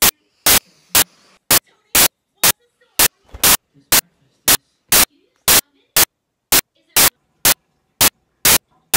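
Short, loud bursts of static repeating evenly about twice a second, with near silence between them: a digital glitch in the recording rather than any real sound source.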